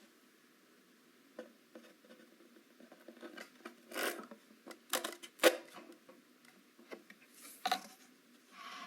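Small-scale crafting and handling sounds: scattered light taps, clicks and short scrapes of tiny parts being worked by hand, with one sharp click about five and a half seconds in.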